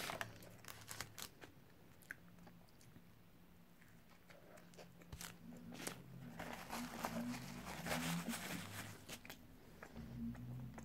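A person chewing a mouthful of cheeseburger close to the microphone, with many small mouth clicks and the chewing getting louder for a few seconds past the middle.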